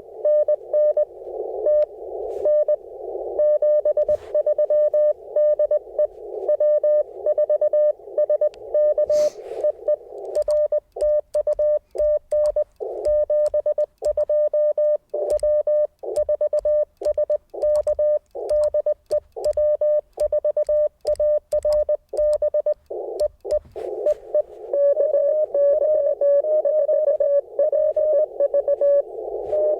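Morse code from an Icom IC-705 ham radio, a single-pitch tone keyed in dits and dahs. At first it is a signal heard inside the receiver's narrow-filter hiss. About a third of the way in the tone switches cleanly on and off with silence between the elements, as in the operator's own sending heard as sidetone. Near the end, keyed tone in the hiss returns.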